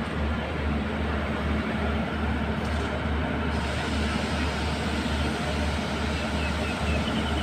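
Diesel train running, a steady low hum with a faint pulse.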